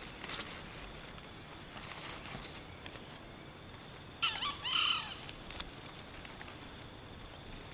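A junglefowl gives one short call, under a second long, about four seconds in. Faint crackles at the start and a steady high insect hum sit underneath.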